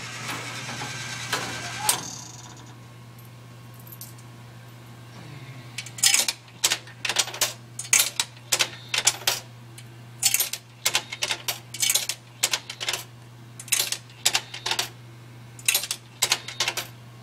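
A vending machine's mechanism runs for about two seconds and stops, leaving a steady low hum. From about six seconds in comes a long irregular run of sharp clicks as nickels and dimes are fed one at a time into the coin slot and drop through the coin mechanism.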